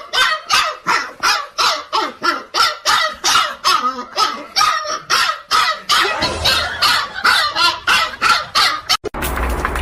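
A dog barking over and over in a steady run of short barks, about three a second. Near the end it cuts abruptly to a steady noise.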